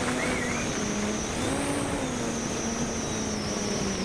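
Bogey 3D model airplane's motor and propeller running with a wavering whine that drifts slowly in pitch as the plane flies, over wind buffeting the microphone.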